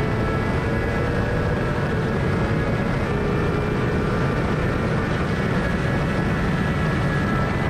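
Onboard sound of a Suzuki GSX-R 600 K8 inline-four race bike with a full Akrapovic exhaust, running at a fairly steady pitch under a dense rush of wind noise, with no clear gear changes.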